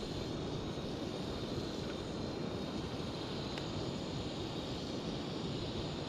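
Portable gas canister camp stove burner running steadily under a pan of boiling water, with a single light click about three and a half seconds in.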